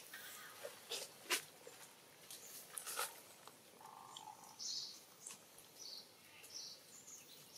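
Faint outdoor sounds: a few sharp clicks in the first three seconds, then several short high chirps.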